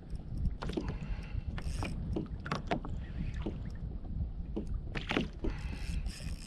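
Water slapping and splashing against a kayak in short, irregular splashes, over a steady low wind rumble on the microphone.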